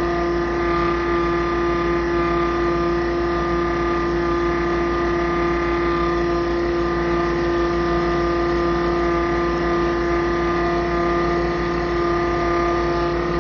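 Piusi EX50 electric fuel transfer pump running steadily under load, pushing fluid through its filter and K33 flow meter back into the drum at about 15 gallons a minute. A steady hum with one strong pitch and fainter higher overtones.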